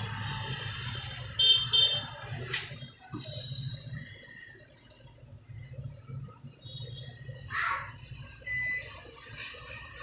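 A few short high-pitched electronic beeps and a sharp click over a low steady hum.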